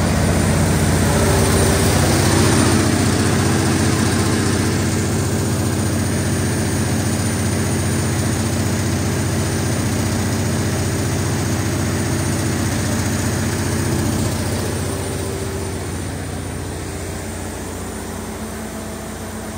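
Cummins NTA-855-G3 turbocharged inline-six diesel engine of a 350 kW generator set running steadily, getting somewhat quieter over the last few seconds.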